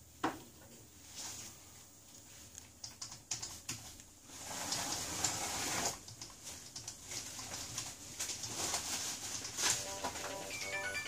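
A thin plastic pick being worked along the edge of a Huawei P20 lite's glass back, separating it from its adhesive: a run of small clicks and crackles, with a louder scraping stretch about four seconds in. Music comes in near the end.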